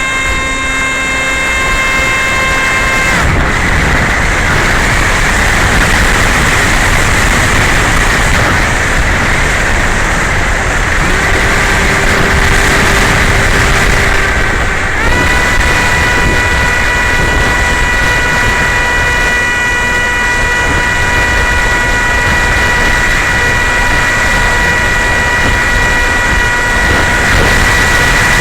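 Homemade RC plane's motor and propeller whining steadily over heavy wind rush, picked up by the onboard camera in flight. The pitch of the whine shifts in steps with throttle: it drops about three seconds in and jumps back up about a quarter of an hour's worth of seconds in, around the middle.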